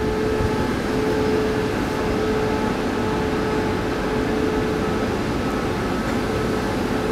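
Steady hum from a TRA push-pull Tze-Chiang electric train standing at the platform before it departs. A low rumble is overlaid by one held mid-pitched tone and fainter tones above it.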